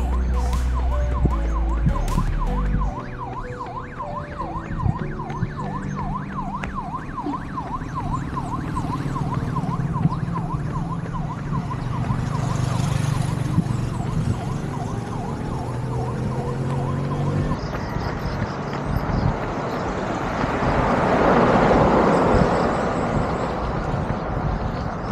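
An emergency-vehicle siren sweeping rapidly up and down in a yelp, several sweeps a second, over road noise, cutting off abruptly about two-thirds of the way through. Deep bass notes of music fade out in the first few seconds, and near the end a rushing noise swells and fades.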